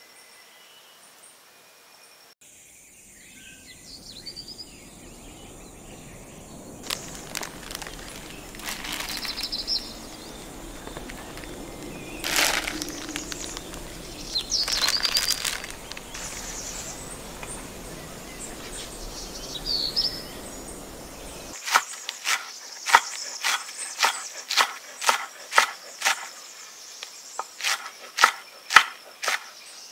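A knife chopping vegetables on a wooden cutting board, a steady run of sharp chops a little more than one a second in the last third. Before that, a plastic bag rustles and crinkles as vegetables are taken out of it, with faint birds chirping at the start.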